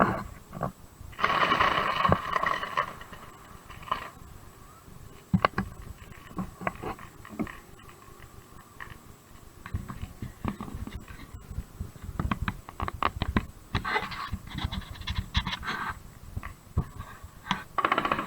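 Fireworks going off: a run of sharp cracks and pops, thickest with a low rumble under them from about ten seconds in, with bursts of crackling hiss near the start and again near the end.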